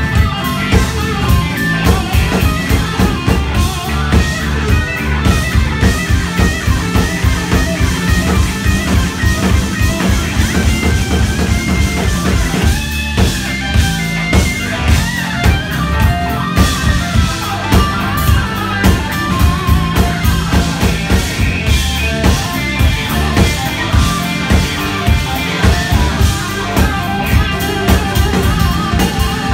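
Live blues-rock band playing: electric guitar lines over a steady drum beat.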